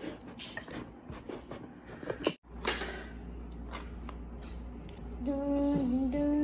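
Plastic clicks and knocks from a hand-cranked play-dough extruder toy being turned and handled. From about five seconds in, a child hums a few wavering notes.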